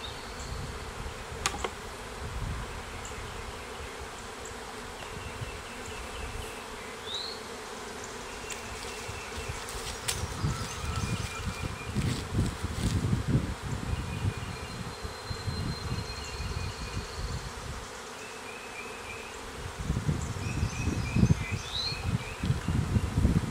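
A swarm of honey bees buzzing steadily around an open hive as the clustered swarm is shaken off a branch into it, with bursts of low rumble near the middle and toward the end.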